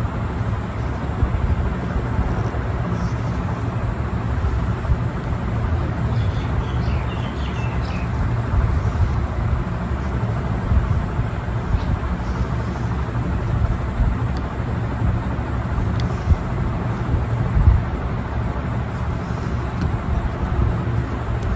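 Steady low background rumble with no clear source, and a couple of brief soft clicks about three-quarters of the way in.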